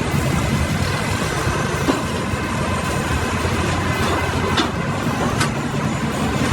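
Firewood log processor running with a steady mechanical clatter, with a few faint clicks along the way.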